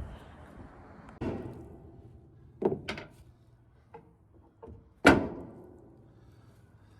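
A series of knocks and thuds, the loudest a sharp bang about five seconds in that fades quickly.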